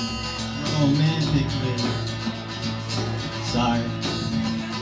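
A rock band playing, with guitar prominent.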